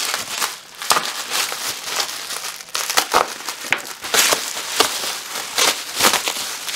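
Plastic bubble wrap crinkling and crackling as it is crumpled and pulled apart by hand to unwrap an object, with sharp crackles scattered throughout.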